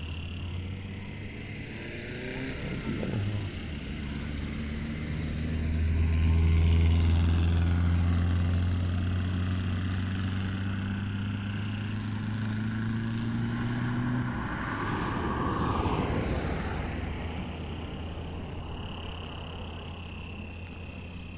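A car passing on the road: a steady engine hum that swells about six seconds in and slowly rises in pitch, followed by a rush of tyre noise around fifteen seconds in.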